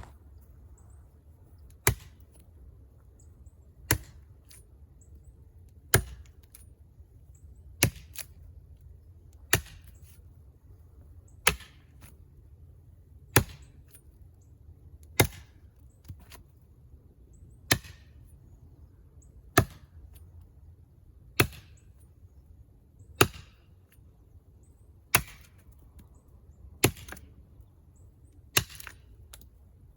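Brush knife with a 13-inch 8670 tool-steel blade chopping into a small tree's trunk to cut the felling notch. About fifteen single sharp strikes come at a slow, even pace, roughly one every two seconds.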